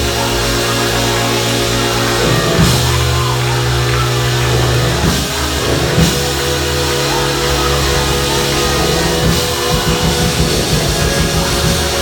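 Loud band music with a drum kit: held bass notes that shift every second or two, and cymbal crashes now and then.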